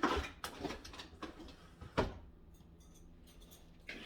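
A few sharp knocks and clatters of kitchen utensils being handled, the loudest just after the start and about two seconds in, as someone rummages through kitchen storage for hand-mixer beaters.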